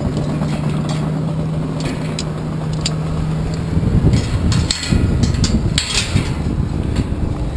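Metal lanyard snap hooks clicking and clinking against the tower's steel members as they are moved along, over a dense low rumble typical of wind on the microphone. A steady low hum stops about four seconds in, and the rumble grows louder after that.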